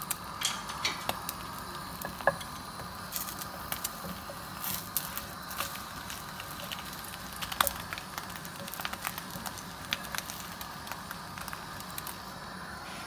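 Thin sheet of beaten egg sizzling in a hot, lightly oiled frying pan, with many scattered crackles and pops.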